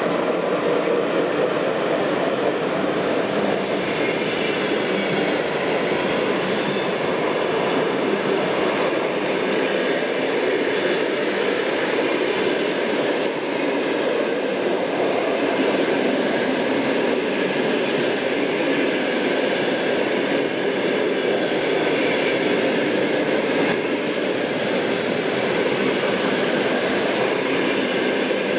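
A passenger train of coaches hauled by a ChS7 electric locomotive rolls past at speed, with a steady rumble of wheels on rails. A faint high whine rises slightly from about four to eight seconds in.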